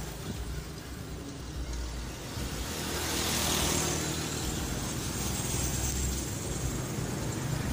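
Road traffic going past: a steady rumbling hiss that swells as a vehicle passes about three seconds in, then eases.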